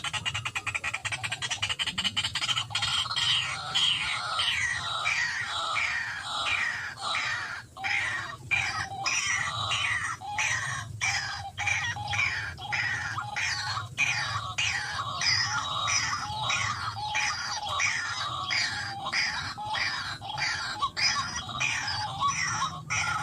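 White-breasted waterhen calling: a long, regular run of repeated notes, about two a second, over a faint low hum.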